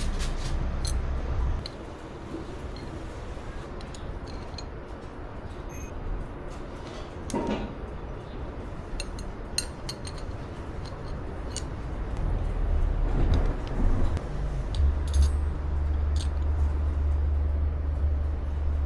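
Scattered metallic clinks and taps of tools and small metal parts being handled. A steady low hum comes up in the last few seconds.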